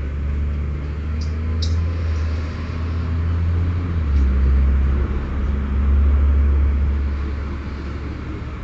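Passenger train running, a loud steady low hum that shifts pitch in one step about four seconds in, with two short high squeaks about a second and a half in.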